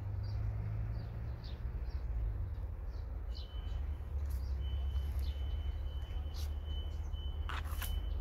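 Outdoor ambience of small birds chirping in short high calls over a steady low rumble. A thin steady high tone comes in about three seconds in, and a few sharp clicks sound near the end.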